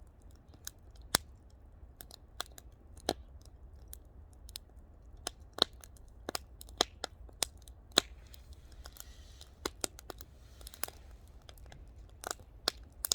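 Firewood fire crackling, with irregular sharp pops and snaps over a low steady rumble.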